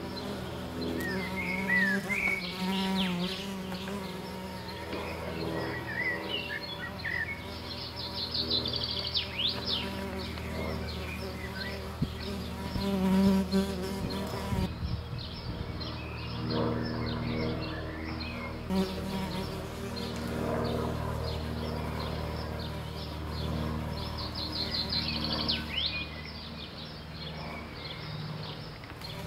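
A steady, insect-like buzzing drone made of several held tones, with short chirping, bird-like glides over it near the start, in the middle and again near the end.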